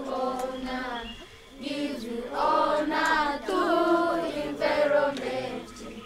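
A group of children chanting a song together in unison, in short sung phrases.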